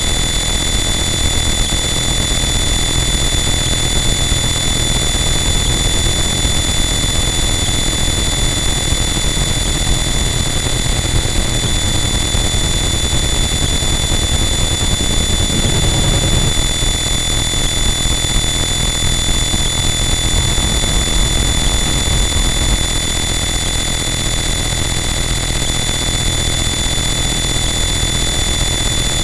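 Harsh noise wall: a loud, unchanging wall of dense distorted noise with steady high-pitched tones running through it, swelling briefly in the low end about halfway through.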